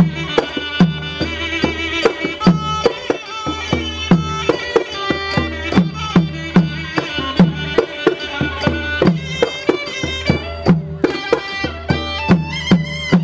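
Traditional Thai music: hand drums beat a steady rhythm of strokes that dip in pitch, over a low drone, while a melody instrument plays held, wavering notes above.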